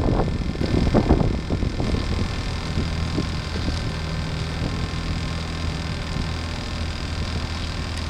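Steady low hum of a motorboat engine, with wind noise on the microphone that is strongest in the first second or so.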